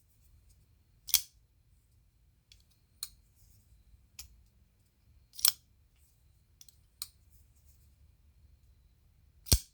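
Asher Spiro flipper knife being flicked open and snapped shut, a series of sharp, irregularly spaced clicks as the blade deploys and locks and closes again, the loudest near the end.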